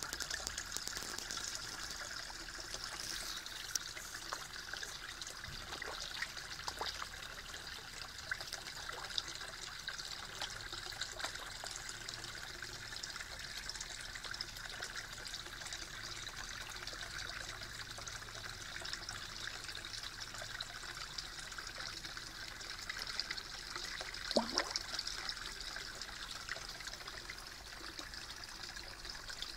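Steady trickle of running water pouring into a garden fish pond, with scattered small clicks and one brief louder sound late on.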